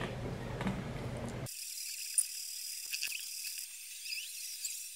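Light scattered clicks and scrapes from hands working wet plaster and a utensil in a plastic pot, with one sharper click about two seconds in. A low room hum drops away about a second and a half in.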